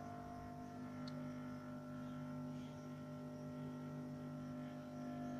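850A hot air rework station running, giving a faint, steady low hum made of a few unchanging tones.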